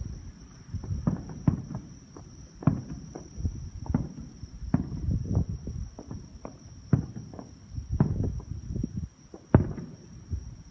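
Fireworks going off: a rapid, irregular string of sharp bangs and pops with low rumbling between them, one louder bang near the end.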